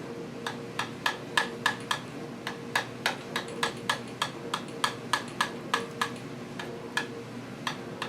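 A run of light, irregular clicks and taps, about three a second, as barbecue sauce is worked into the slits of raw chicken pieces. A steady low hum runs underneath.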